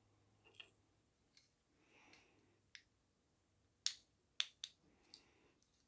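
Small clear plastic feed-tube parts of a gel blaster drum magazine clicking and tapping as they are handled, a handful of sharp clicks with the three loudest close together about four seconds in, over faint handling noise.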